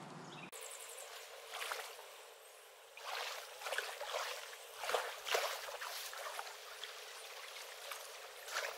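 Kayak paddle strokes dipping and splashing in a slow creek, with water trickling off the blades; the splashes come thickest from about three to five and a half seconds in.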